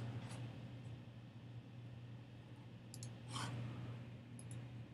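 A few faint clicks of computer use over a steady low hum, with a short soft rush of noise about three and a half seconds in.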